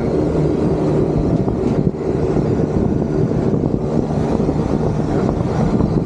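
A 25-ton Trane rooftop package air-conditioning unit running, its condenser fans and compressors making a loud, steady drone with a low hum.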